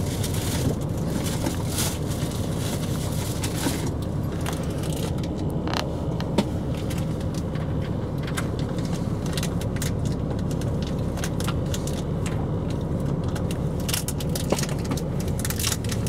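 Steady low rumble of a vehicle, even in level throughout, with scattered light clicks and rattles over it.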